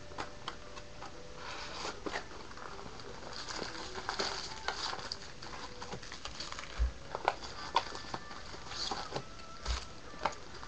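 Handling and unwrapping a cardboard box of trading-card packs: crinkling wrapper, rustling and light clicks, with a few taps and two soft thumps as the packs are set down on the desk.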